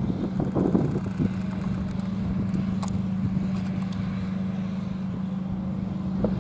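A steady low hum with faint falling tones from distant outdoor warning sirens winding down at the end of a siren test.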